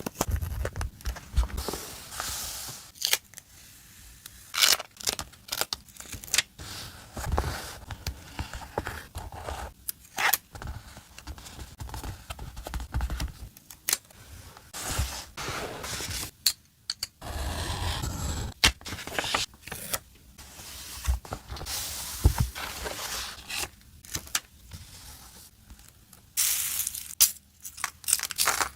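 Slime being squished, stretched and pulled apart by hand close to the microphone: irregular crackles, pops and tearing sounds, with a few longer crinkly stretches.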